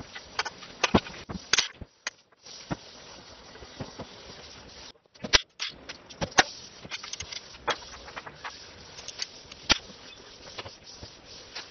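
Irregular sharp clicks and knocks of hand tools and metal engine parts being handled during a diesel engine teardown, over a steady hiss. The sound drops out briefly twice.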